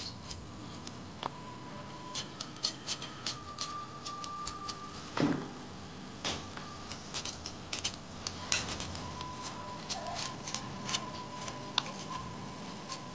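Small kitchen knife cutting and peeling shallots and garlic held in the hand: irregular, sharp little clicks of the blade through the bulbs, with one louder knock about five seconds in.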